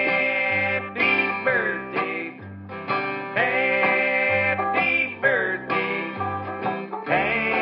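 Background music: a country-style song with plucked guitar or banjo, a bass line and a singing voice.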